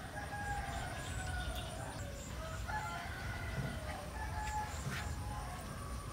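Roosters crowing repeatedly, one drawn-out call after another, over a steady low rumble.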